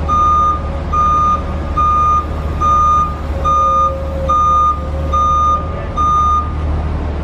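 Forklift reversing alarm beeping steadily, about one beep every 0.8 seconds, as the Yale forklift backs up, with its engine running as a low steady hum underneath.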